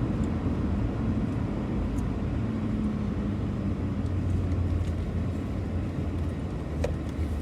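Loaded semi truck running steadily on the road: a low, even engine drone with road noise and a couple of faint ticks.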